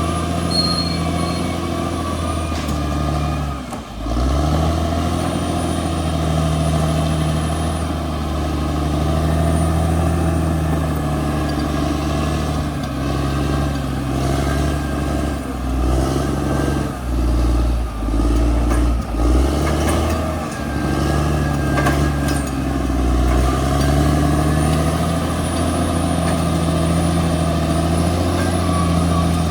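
Crawler bulldozer's diesel engine working under changing load. It runs steadily, drops briefly about four seconds in and picks up again, then surges and pulses unevenly through the middle before settling back to a steady run.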